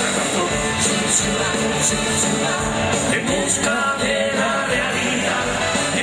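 Live band playing on an amplified stage, heard from within the audience.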